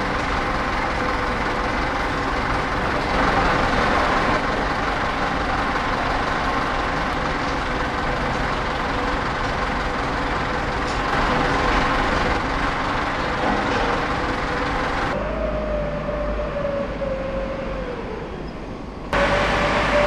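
Steady industrial running noise of a tilting rotary dross furnace, with a forklift's engine running beside it while molten aluminium is tapped, and a constant hum underneath. About fifteen seconds in the sound turns duller and a whine slowly falls in pitch.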